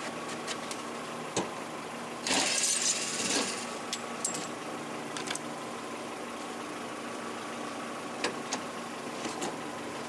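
Plastic inner fender liner being flexed and pulled out of a pickup's front wheel well: a loud scraping rustle a couple of seconds in and scattered sharp clicks of plastic. A steady engine-like hum runs underneath.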